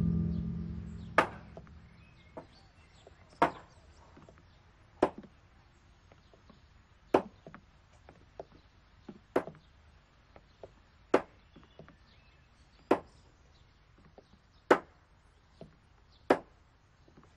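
A deep gong-like ringing fades out in the first second or two. It gives way to a slow series of sharp knocks, about one every two seconds, with fainter knocks between.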